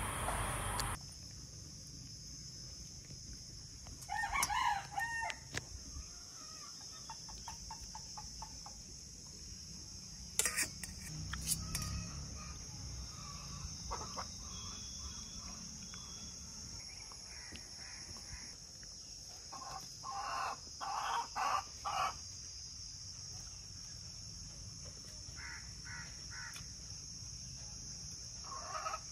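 Farmyard chickens: a rooster crows once, about four seconds in, and a short run of clucking calls comes around two-thirds of the way through, over a steady high-pitched hiss.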